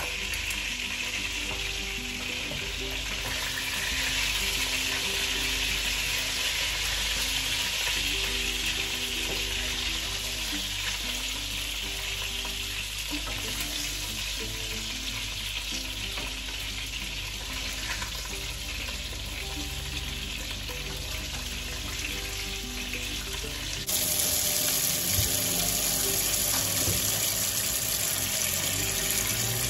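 Meatballs sizzling in hot oil in a frying pan, a steady crackling hiss. About 24 s in it changes abruptly to a kitchen tap running into a stainless steel sink.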